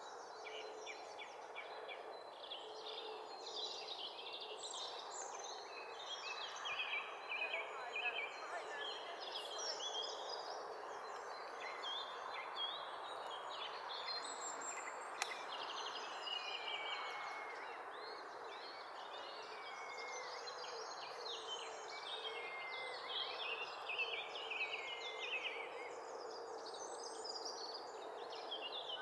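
Small songbirds singing and chirping without a break, a busy mix of high, quick notes, over a steady rushing background noise.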